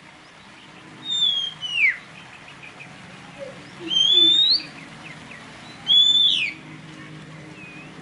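Oriental magpie-robin song: three loud whistled phrases about two seconds apart, each a clear whistle that sweeps up or glides steeply down.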